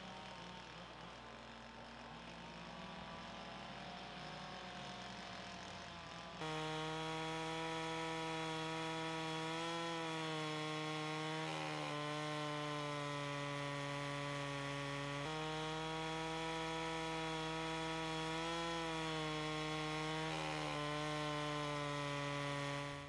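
Chainsaw ripping lengthwise along the top of a peeled log to cut a flat, its engine held at a steady high pitch with small dips as the cut loads it. The chainsaw comes in abruptly about six seconds in; before that a quieter engine runs.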